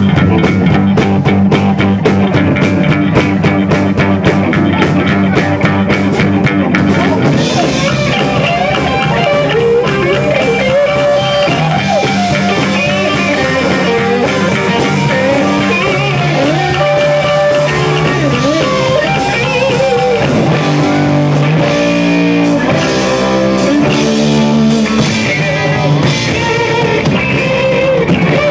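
Live amplified rock band playing a song: electric guitar, bass guitar and drum kit, with lead vocals coming in about eight seconds in.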